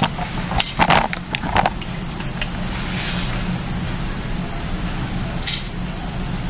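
Metal spatula clinking and scraping inside a small glass bottle of solid iodine crystals as it is scooped out, a few short scrapes in the first two seconds and a brief rattling scrape about five and a half seconds in. A steady low hum runs underneath.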